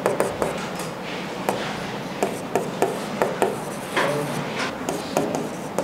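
Handwriting on a writing surface: a run of irregular sharp taps and short scratching strokes.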